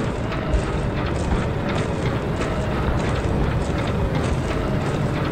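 Battle sound effects from an animated video: a dense, steady engine-like rumble with many sharp cracks.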